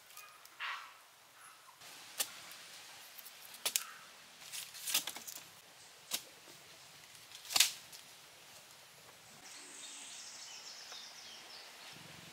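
Thin wooden poles knocking and clicking as they are handled and set into the ground: a handful of sharp knocks, a second or so apart, the loudest just past the middle.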